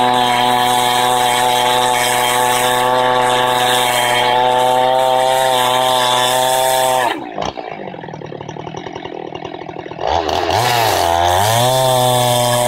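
Husqvarna 390XP two-stroke chainsaw with a 28-inch bar and ripping chain, held at full throttle while ripping lengthwise through a Douglas fir log in a chainsaw mill. About seven seconds in the engine suddenly drops to low revs for about three seconds, then revs back up unevenly to full speed.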